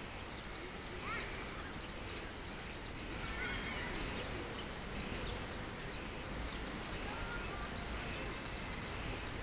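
Outdoor ambience: a steady bed of background noise with a few short bird chirps, one about a second in, a cluster around three and a half seconds, and another near seven seconds.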